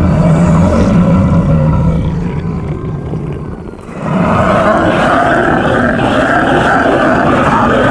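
Zombie growls and roars, loud and continuous, dying down about three seconds in, then a louder chorus of wavering growls breaking in suddenly about four seconds in.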